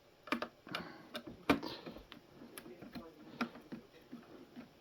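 Irregular small clicks and ticks of a screwdriver working screws out of a coffee machine's plastic housing, with one sharper click about a second and a half in.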